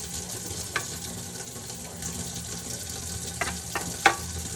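Steady rush of water running from a kitchen tap, with a few light clicks and knocks, the sharpest near the end.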